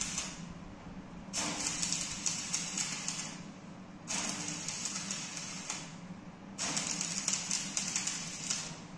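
Electric arc welding on a dump truck's steel door: the arc crackles and sizzles in runs of about two seconds, stopping and restarting three times with short pauses, over a steady low hum.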